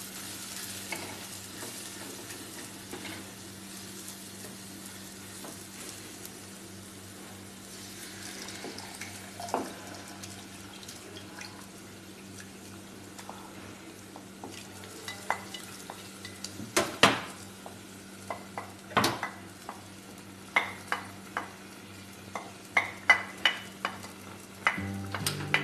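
Onion-tomato masala sizzling in a clay pot as a wooden spoon stirs it. From about halfway, a run of sharp clicks and knocks as the wooden spoon scrapes boiled lobster pieces off a ceramic plate into the pot.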